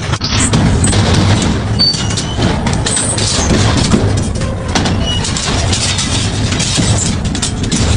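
Industrial double-shaft shredder running under load, grinding material between its blade shafts: a steady heavy drone with a low hum, scattered sharp cracks and a few brief high squeals.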